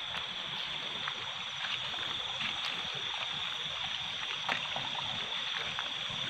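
Steady rush of a small, shallow rocky stream, with a thin steady high tone over it and a couple of faint splashes or knocks from wading.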